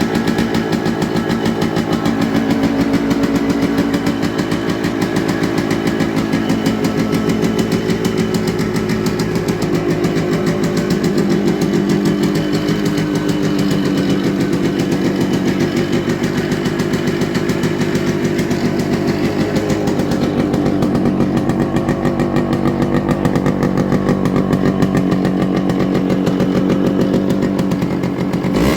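Yamaha RX100's two-stroke single-cylinder engine running steadily through its original silencer, loud, with a fast even beat of exhaust pulses.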